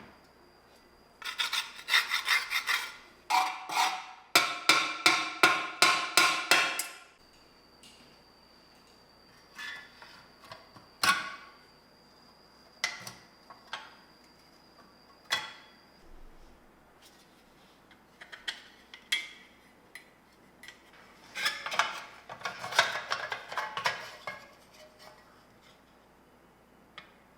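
Rapid back-and-forth hand abrading strokes, about four or five a second, working rust on the old metal truck parts. They come in runs, with single clicks and taps of the part being handled between them.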